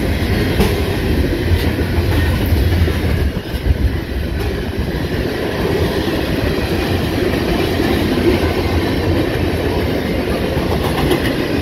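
CSX mixed freight train's cars rolling past close by: a steady rumble of steel wheels on the rails, with occasional sharp clicks.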